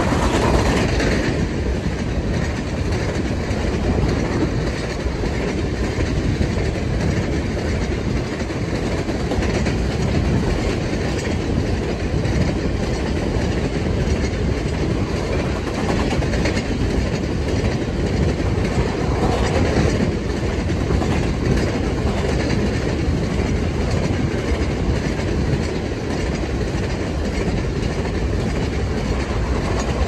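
Covered hopper cars of a potash freight train passing at about 60 mph: a steady rumble and clatter of steel wheels on rail.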